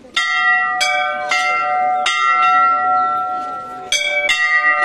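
Metal bells struck again and again at an uneven pace, about six strikes. Each strike rings on in long overlapping tones, and the pitch shifts between strikes as different bells are hit, like a row of temple bells being rung.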